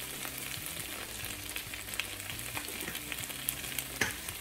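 Thin potato slices sizzling in a frying pan: a steady hiss with many small scattered pops.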